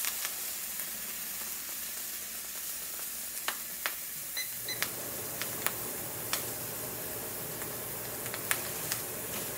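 Butter and bread sizzling in a stainless skillet, with occasional sharp pops. About four seconds in, the over-the-range microwave's keypad gives two short beeps, and its vent fan starts with a steady hum.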